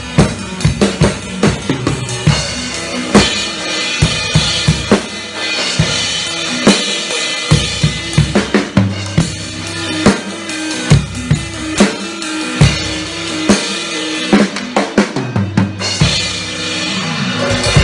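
Drum kit played hard and busy, with kick drum, snare and tom hits over a wash of cymbals. Underneath is an electric guitar holding sustained notes.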